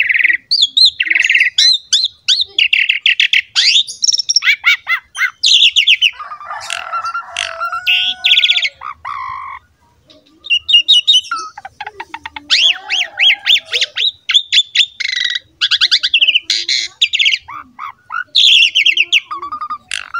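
Asian pied starling (jalak suren) singing vigorously: a rapid, varied string of whistles, fast trills and harsh squawky notes. A rasping phrase comes about a third of the way in, and the song breaks off briefly about halfway.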